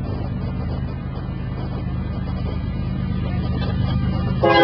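Diesel locomotive engine rumbling as the train approaches, growing steadily louder. Right at the end the locomotive's air horn starts blowing a loud multi-note chord.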